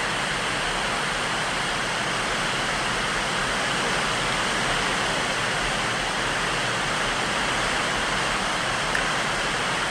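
Steady rush of river water running over rocky rapids.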